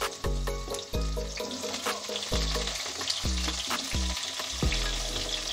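Potato chunks sizzling steadily in hot mustard oil in a wok as more pieces are added to fry.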